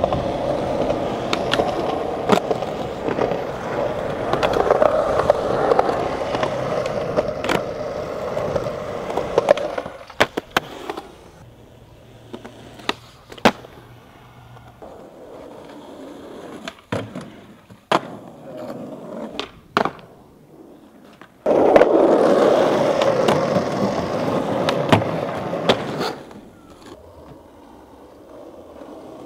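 Skateboard wheels rolling on concrete with sharp clacks of the board hitting the ground. The rolling stops about ten seconds in, leaving scattered clacks, then starts again for about four seconds past the twenty-second mark.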